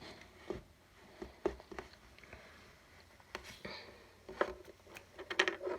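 LEGO pieces and minifigures being handled, giving a few scattered small plastic clicks and ticks, a handful in the last second.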